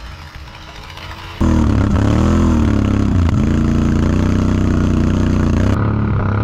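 Can-Am Renegade 1000 ATV's V-twin engine revving, loud and close, its pitch rising and falling again and again. It starts abruptly about a second and a half in, after a quieter stretch, and sounds duller near the end.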